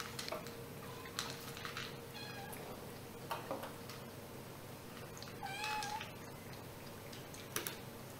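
Black kittens meowing twice: a faint short mew about two seconds in and a louder, longer high-pitched meow about five and a half seconds in. Scattered light clicks come from the kittens eating at their food bowls.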